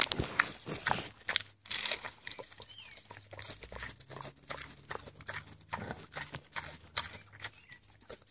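Pig eating iceberg lettuce: wet lip-smacking and crunching chews in quick, irregular clicks.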